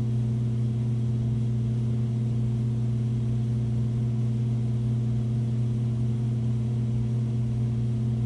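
Aquarium pump humming steadily: a low, even electrical hum with a few higher overtones.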